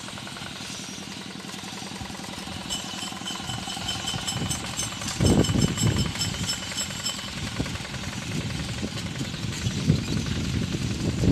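Tractor engine running steadily while plowing a rice paddy, joined by loud, irregular low rumbling from about five seconds in. A high, pulsing whistle-like tone sounds over it for a few seconds in the middle.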